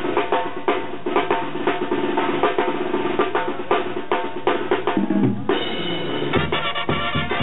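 Mexican banda brass-band music with a steady beat. The drums (bass drum, snare and cymbal strokes) lead, then the brass comes in with a held chord about five and a half seconds in. Deep bass notes join about a second later.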